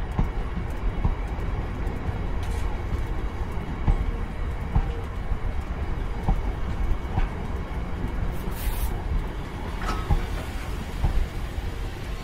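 Open box freight wagons rolling slowly past close by: a steady low rumble of wheels on rail with scattered knocks and clanks, and a brief hiss about eight and a half seconds in.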